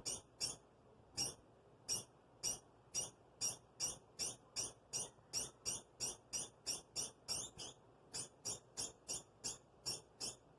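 Pet degu giving a long run of short, high squeaking calls, speeding up to about three a second, with a brief pause about eight seconds in. The owner says she is not in pain.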